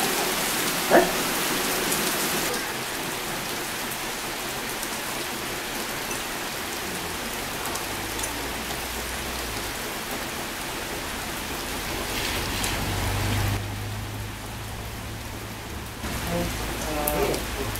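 Heavy monsoon rain pouring down in a steady hiss. A couple of seconds in it drops to a softer rain falling on leaves and wet paving. There is one short loud sound about a second in.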